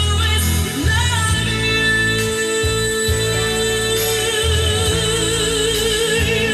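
Music with singing: a voice holds one long note with vibrato over a steady bass line.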